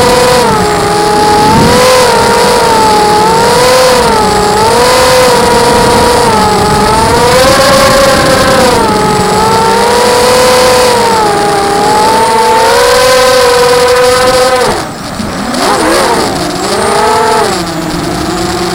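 Electric motors and propellers of a ZMR 250 FPV quadcopter whining in flight, the pitch rising and falling with the throttle. About fifteen seconds in the whine drops off sharply, swings up and down quickly, then settles at a lower, steadier pitch.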